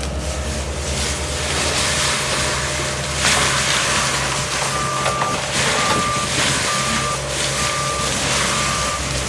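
Diesel engines of Bobcat land-clearing machines running steadily, with loud surges of noise. About halfway through, a backup alarm starts beeping, just over one beep a second.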